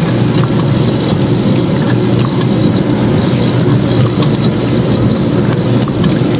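Salgado-forming machine running steadily as it turns out meat croquettes: a constant motor and conveyor-belt drone with a few faint ticks.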